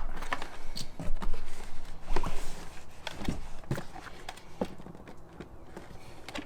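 Scattered knocks and clicks of hands working the Tesla Model 3's manual door release free, pulling its green connector straight up to disconnect it. The loudest knocks come between about one and two and a half seconds in.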